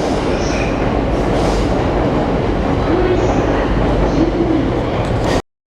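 JR commuter train with double-deck cars pulling out along the platform: a steady, loud rumble of wheels on rail that cuts off suddenly near the end.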